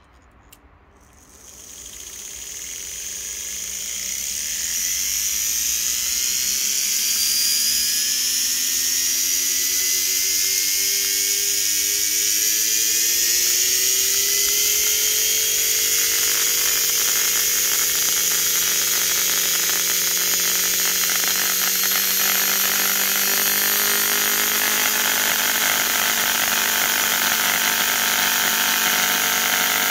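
Bare blender universal motor, fed more than its rated voltage through clip leads, starts about a second in and spins up with a rising whine over several seconds. It then runs flat out with a steady high-pitched whine, its pitch still creeping up slowly.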